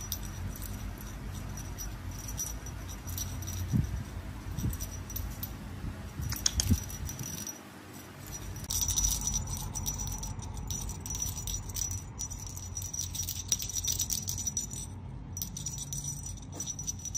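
Light jingling and rattling of a cat's feather wand toy being waved at a kitten, with many small clicks.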